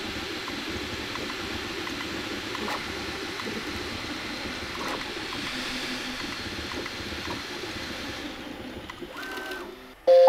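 Bambu Lab A1 3D printer printing, its stepper motors and moving print head making a steady mechanical noise that fades out near the end, with a brief high tone just before it stops.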